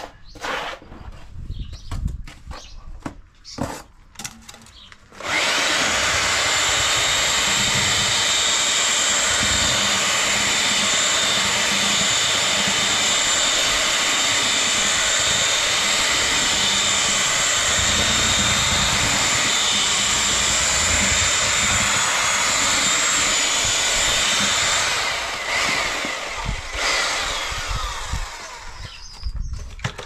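Titan hand drill driving a paddle mixer whisk through mortar in a bucket. After a few seconds of scattered knocks and scrapes, the drill runs steadily at full speed with a high whine for about twenty seconds, then slows and stops in short runs near the end.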